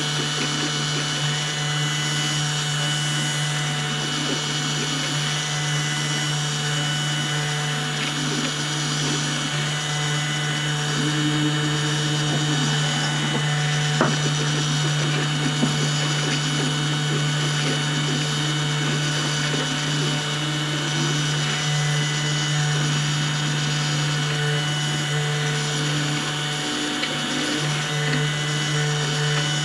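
CNC 2535 mini router running its job: the spindle motor hums steadily, while the stepper motors give short whining tones that switch on and off and change pitch as the axes move. A single sharp click about halfway through. The machine is no longer engraving, because the height of the bit has suddenly shifted during the job.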